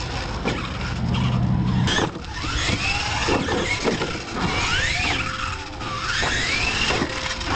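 Radio-controlled monster truck's electric motor whining in several rising and falling surges as the throttle is worked.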